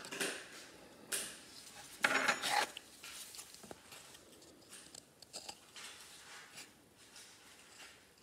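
Handling noise of small objects on a tabletop: a hand picking up a crumpled aluminium foil ball and setting a ruler beside it, with a few short rustles and clatters, the loudest about two seconds in, then light clicks.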